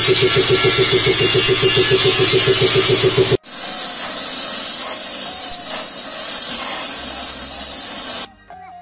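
Loud hiss of steel being worked with shop tools. It first comes with a fast, even pulsing of about ten beats a second, then breaks off abruptly and goes on as a steadier hiss that stops near the end.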